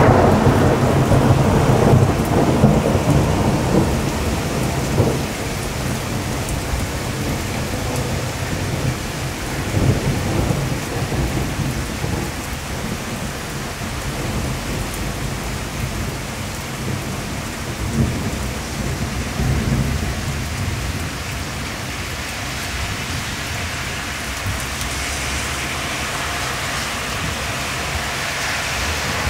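Heavy rain pouring steadily onto a flooded street, with a deep low rumble that is loudest in the first few seconds and swells again about ten and eighteen seconds in.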